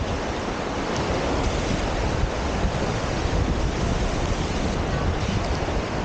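Small waves breaking and washing up the sandy shore in a steady hiss, with wind buffeting the microphone in a low rumble.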